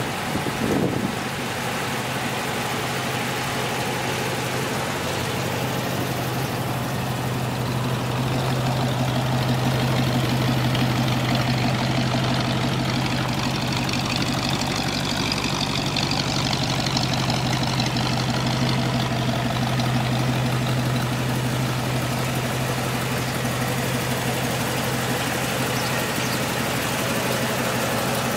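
Fuel-injected Chevrolet Ramjet 350 small-block V8 idling steadily, a low even hum that swells slightly about ten seconds in and then settles.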